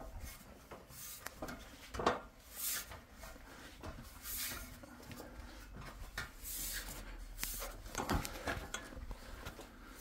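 Footsteps and hands on an aluminium ladder as it is climbed: scattered knocks and clanks, two of them sharper about two seconds in and near the end, with scuffing and rustling between them.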